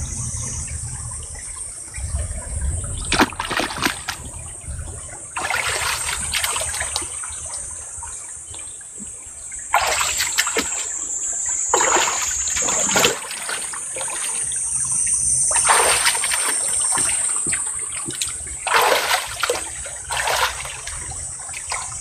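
Hands scooping and splashing in shallow muddy stream water among stones, in separate bursts every two to three seconds, over the steady trickle of the flowing stream.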